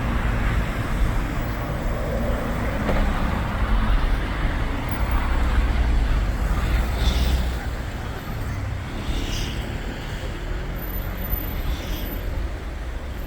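Hyundai New County Super long-wheelbase minibus engine running with a low rumble amid road traffic, easing off about seven seconds in as the bus slows. A few short high-pitched sounds come near the end.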